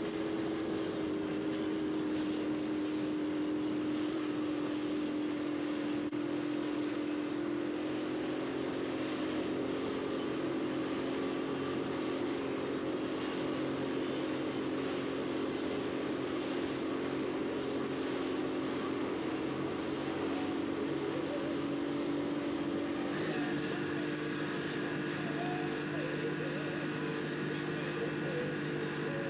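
Boat engine running steadily under way, heard from on board as a continuous drone. Its tone changes suddenly about three-quarters of the way through.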